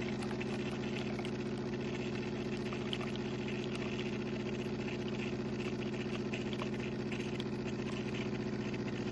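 De'Longhi TrueBrew drip coffee maker running steadily mid-brew, a low even hum from its pump and heater as hot water is pushed through the grounds, with a few faint ticks.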